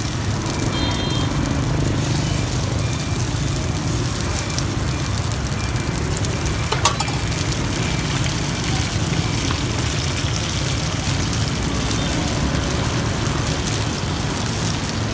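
Street-food frying: bột chiên (rice-flour cake) and egg sizzling in oil on a cart's pan, a steady sizzle over low traffic hum, with one sharp clack about seven seconds in.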